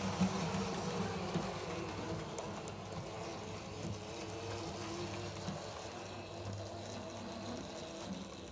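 Model train running on the layout: the locomotive's small electric motor buzzes steadily over the rumble of wheels on the track, slowly getting quieter.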